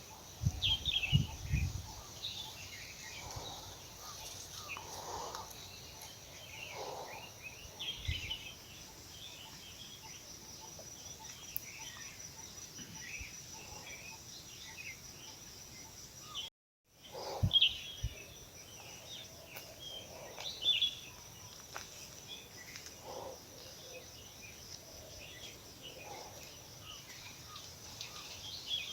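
Small birds chirping and twittering in many short, scattered calls over a steady high insect trill. A few low thumps come in the first couple of seconds, and the sound cuts out completely for a moment just past halfway.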